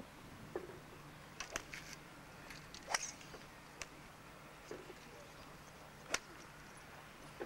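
Sharp clicks of golf clubs striking balls, the loudest about three seconds in as a driver hits a tee shot, another a little after six seconds, with fainter ones between. A faint steady hum runs underneath.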